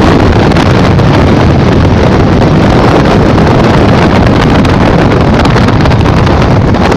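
Loud, steady wind rush buffeting the microphone of a motorized hang glider trike on its landing approach, with the trike's engine running underneath.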